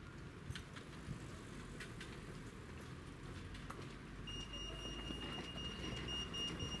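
Low, steady rumble of street traffic, with a few faint clicks. A little past halfway a steady high-pitched electronic beep tone starts and holds.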